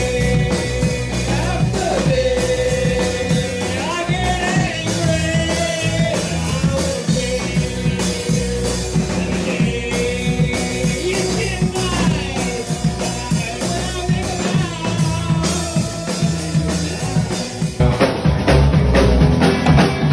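Rock band playing: a lead singer holding long, wavering notes over a drum kit, bass and guitar. About two seconds before the end the music cuts abruptly to another, slightly louder performance.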